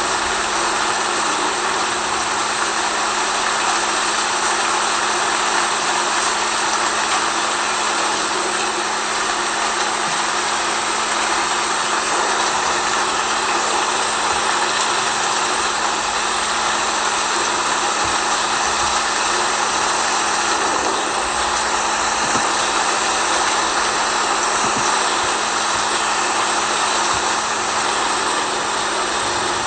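Steady, even rain-like hiss with a constant low hum underneath, unchanging throughout.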